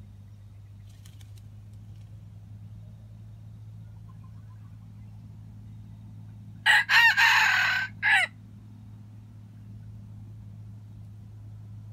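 Red junglefowl rooster crowing once about seven seconds in: a loud crow of under two seconds, broken into parts by short gaps.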